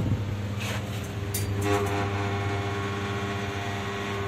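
Passenger lift running upward, heard from inside the car: a steady low hum, two sharp clicks in the first second and a half, then a steady whine of several tones from a little under halfway in.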